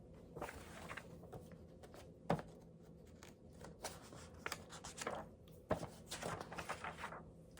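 Paper rustling and light knocks of a picture book being handled and its page turned, a series of short scattered rustles and taps.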